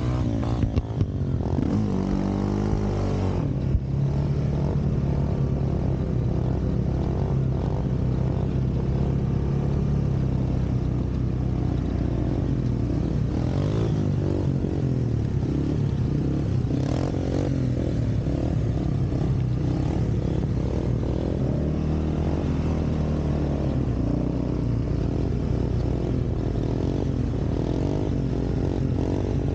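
Yamaha Raptor 700R ATV's single-cylinder four-stroke engine running, its revs rising and falling now and then, with a few knocks in the first four seconds.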